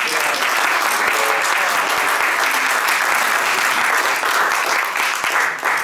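Audience applause, steady clapping that stops sharply near the end.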